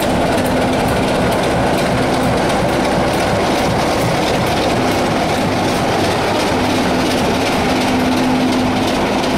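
Class 26 diesel locomotive's Sulzer six-cylinder engine running steadily as it moves off light engine, with wheels clicking over the rail joints.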